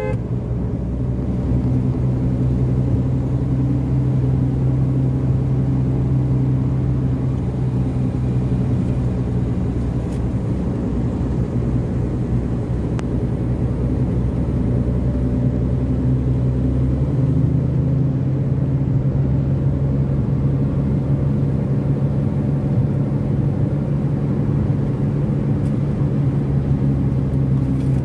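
Car engine and road noise heard from inside the cabin while driving: a steady low drone that shifts slightly in pitch a little past halfway through.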